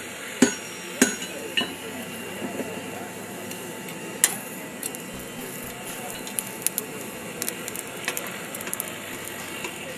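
A coal forge fire crackling, with scattered small clicks and rattles of coal being shifted around the iron as it is heated, over a steady hiss. A few sharp metallic clinks come in the first couple of seconds, and one more about four seconds in.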